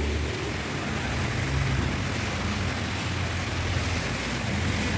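Steady rain falling on the street and pavement, an even hiss, with a low hum of road traffic underneath.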